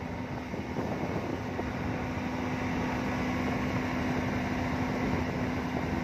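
Motorboat engine running steadily under way, a constant hum with the rush of water and air around the hull.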